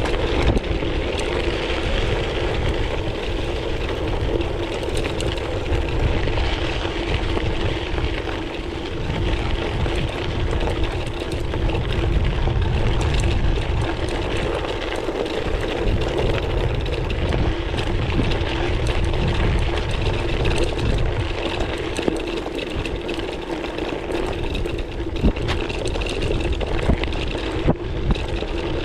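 Gravel bike tyres rolling steadily over a loose gravel track, a continuous rumble with small ticks and rattles from stones and the bike, under wind buffeting the action camera's microphone.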